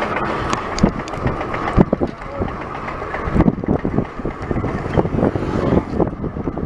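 Handling noise: a gloved hand rubbing and knocking against the bike-mounted camera, irregular scrapes and bumps over a steady hiss of wind and road noise from riding.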